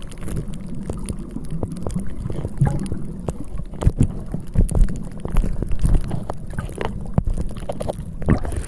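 Wind buffeting the microphone: a low rumble with irregular thumps and knocks, heavier in the second half.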